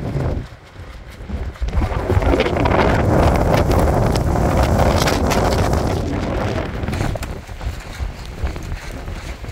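Wind gusting across the microphone, a rumbling rush that drops away briefly about half a second in and swells again about two seconds in.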